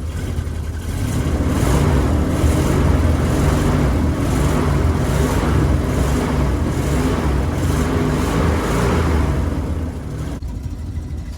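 Step van's engine running, getting louder about a second in and easing off near the end. The engine has a blown head gasket.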